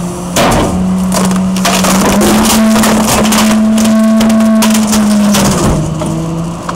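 Vehicle engine drone at a steady pace, its pitch stepping up slightly a few times, with a loud crackling rattle running over it.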